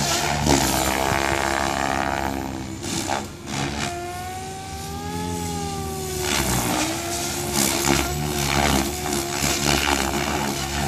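Goblin 630 electric RC helicopter, driven by a Scorpion 4035-560kv motor, in flight: a loud, steady whine and drone from its motor and main rotor blades. From about four seconds in, the pitch rises and then falls for a couple of seconds, and the sound grows rougher again as it manoeuvres.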